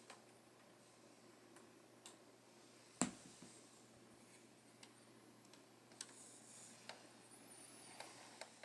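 Faint, irregular clicks and taps of hands handling a LEGO brick truck model, with one sharper click about three seconds in, over near-silent room tone.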